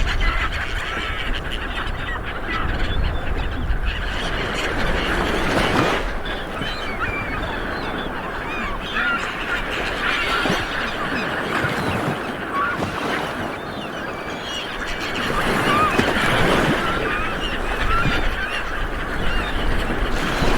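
Light waves breaking and washing on a beach, swelling and ebbing, with many birds calling overhead in short chirps throughout.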